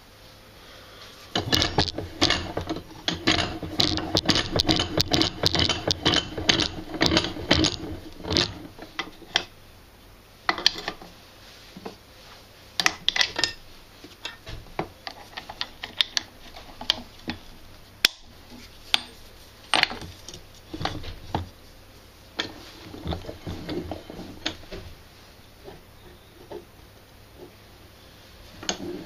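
Metal clinks, knocks and rattles of steel sockets and a bench vise being handled while a KX500 swingarm is repositioned for pressing out its bearing. There is a dense run of clatter for the first several seconds, then scattered single knocks.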